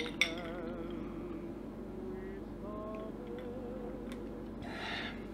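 Soft background music: a slow melody of held, wavering notes over a steady low drone. A single sharp click about a quarter second in, and a short rush of noise near the end.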